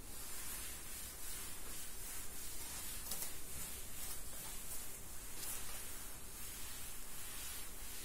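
Board duster rubbing across a chalkboard to erase it: an uneven swishing rub, with a couple of stronger strokes about three and five and a half seconds in.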